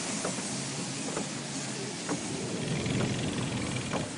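Storm rain falling steadily over a low rumble, with scattered drops tapping close by every half second or so.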